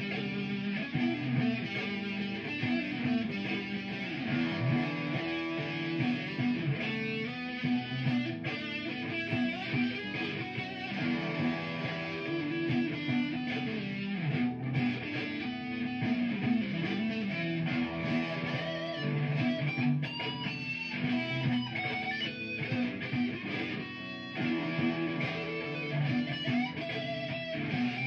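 Electric guitar playing an improvised lead line over a looped guitar backing part, with steady low notes under the melody.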